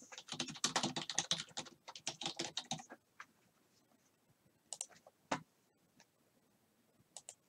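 Typing on a computer keyboard: a quick run of key clicks for about three seconds, then a few scattered single key presses.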